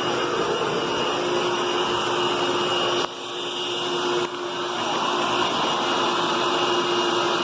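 Hoover Tempo Widepath upright vacuum cleaner running, a steady motor whine over the rush of air. The sound drops suddenly about three seconds in and builds back up over a second or so.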